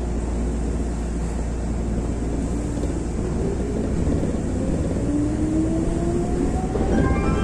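Nagano Electric Railway 8500 series (ex-Tokyu) electric train pulling away from a station. A steady low rumble runs throughout, and from about halfway a motor whine rises in pitch as the train accelerates.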